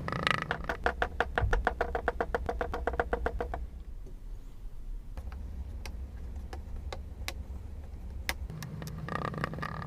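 Homemade slime being worked by hand, giving a quick, even run of wet clicking pops, about eight a second, that stops about three and a half seconds in; after that only scattered single clicks.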